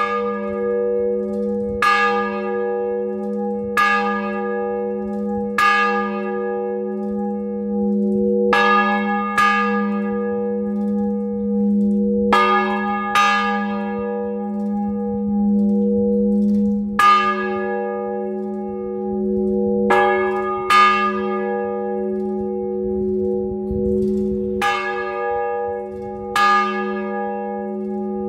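Bronze church bells cast by the Pasqualini foundry in 1939, swinging and ringing. Clapper strokes come roughly every two seconds, sometimes two close together, over a steady hum of the bells' ringing.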